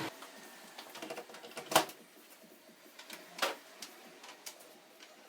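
Light clicks and taps of hands handling a bare laptop motherboard and its charger plug. There are two sharper knocks, near two seconds in and again about a second and a half later.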